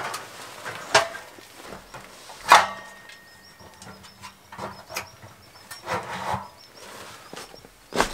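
Caminus M metal tent wood stove being set down and shifted on its mat: scattered knocks, a loud clank about two and a half seconds in with a brief metallic ring, then scraping, and another sharp knock near the end.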